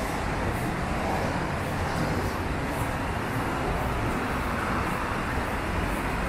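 Steady noise of city street traffic.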